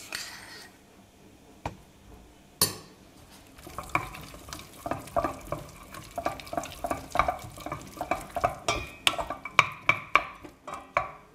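A wooden spoon stirring pasta coated in egg yolk, butter and pecorino cream in a stainless steel pot. There is a single sharp knock at about two and a half seconds, then from about four seconds in a quick run of soft knocks and scrapes against the pot.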